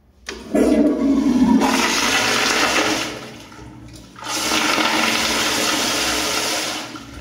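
Helvex flushometer toilet flushing: water rushes through the valve and bowl in two loud surges, the second starting about four seconds in.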